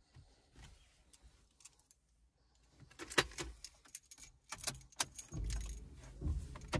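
Keys jangling with a run of sharp clicks and knocks starting about three seconds in, and a low rumble near the end: the car key being handled and turned in the ignition.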